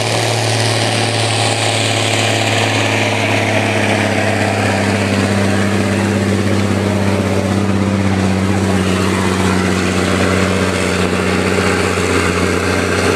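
Diesel truck engine running flat out under heavy load while dragging a truck-pulling weight sled. It makes a loud, steady drone that holds one pitch throughout.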